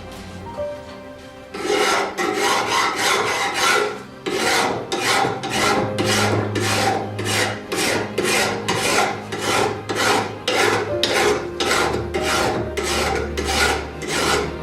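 Hand file or rasp strokes, repeated in a steady back-and-forth rhythm of about two strokes a second, starting a couple of seconds in.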